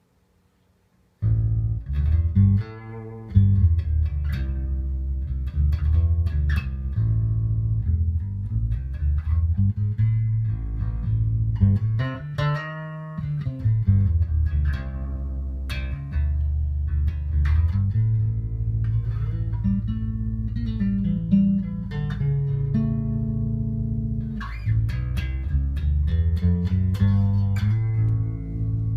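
Rickenbacker 4003 electric bass with toaster and horseshoe pickups, played solo through a Markbass T800 amp into a Bergantino AE410 4x10 cabinet. A run of plucked notes and riffs starts about a second in. Around the middle the low notes briefly drop out for higher ringing notes.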